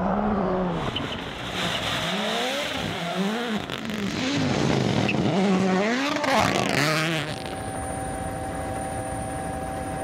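Rally car's turbocharged four-cylinder engine revving hard, its pitch climbing and dropping again and again with gear changes, over gravel and tyre noise. About seven seconds in it gives way to a steadier, even hum.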